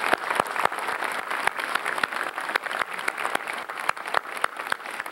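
Large audience applauding: many hands clapping in a steady, dense patter.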